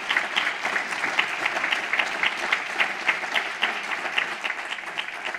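Audience applauding, many hands clapping at an even rate, cutting off suddenly at the end.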